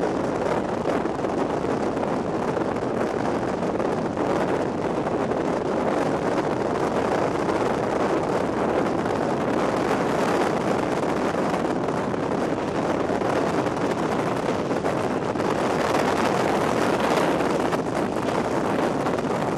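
Strong wind blowing across the microphone: a steady, loud rush with no break.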